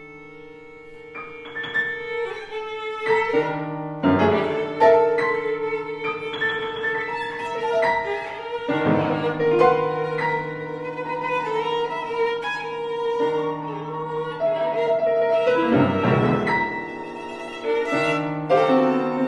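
Violin and grand piano playing together in a contemporary classical piece. It opens quiet on long held notes, grows louder within the first few seconds, and the piano strikes strong chords now and then under the bowed violin line.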